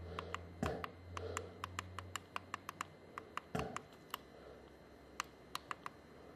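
Push buttons on a programmable floor-heating thermostat clicking in quick succession, about four to five presses a second, as the clock time is stepped; after about four seconds the clicks slow to a few single presses.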